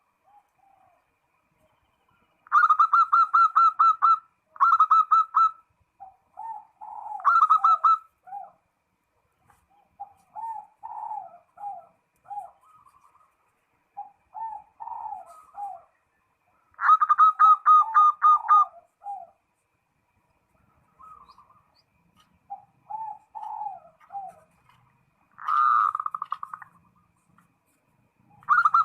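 Zebra dove (perkutut) singing its rapid, rolling cooing song: phrases of quick staccato notes alternating with lower, bubbling coos, repeated with short pauses. The loudest phrases come a few seconds in and again about halfway through.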